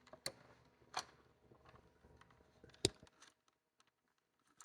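A few faint clicks and taps, the loudest about three seconds in, from hands and a nut driver working at a screw in a refrigerator's plastic water-dispenser housing.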